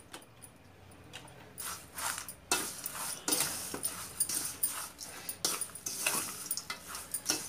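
A metal spoon stirring a dry bhel mix of chivda, sev and chopped vegetables in a stainless steel bowl. The spoon scrapes and clinks against the steel again and again while the crisp mixture rustles, starting about a second and a half in.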